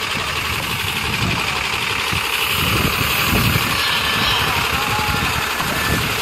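Diesel engine of a semi truck idling close by, a steady low rumble under a constant hiss, with voices mixed in.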